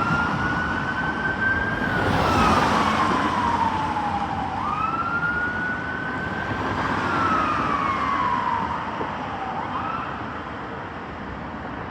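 Fire engine siren sounding a slow wail: each cycle jumps up quickly, creeps a little higher, then glides slowly down, repeating about every five seconds. A brief rush of noise sounds about two seconds in, and the siren grows fainter near the end as the appliance moves away.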